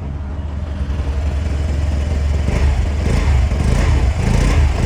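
Single-cylinder, air-cooled 125cc scooter engine idling steadily just after an electric start, a low hum that grows slightly louder.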